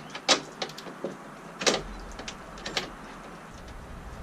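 A wrench tightening a hood strut's ball stud: a handful of sharp clicks at uneven intervals, a pair bunched together near the end.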